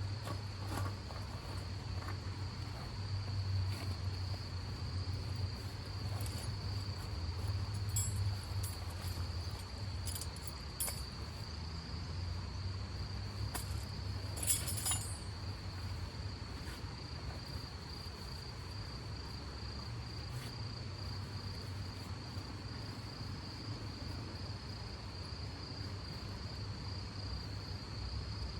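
Crickets chirping in a continuous high, steady trill over a low steady rumble, with a few brief clicks and taps around the middle.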